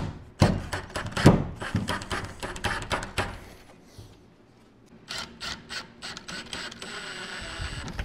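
Milwaukee cordless driver running screws into the wooden framing in two spells: a run of rapid clicking and whirring in the first three seconds, then more from about five seconds in, settling into a steady motor whine near the end.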